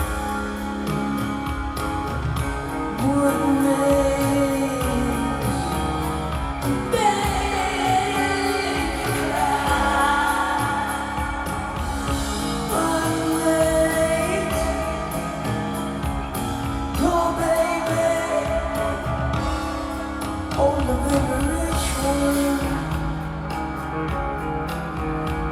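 Rock band playing live, with a singer's voice over the band. The sung line slides up and down in pitch across the whole passage.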